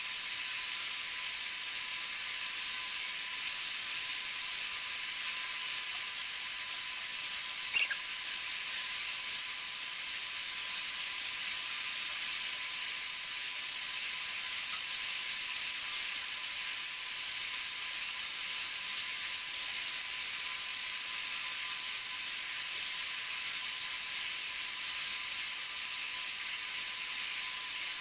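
Steady high-pitched hiss with a faint steady whine under it, and a single short click about eight seconds in.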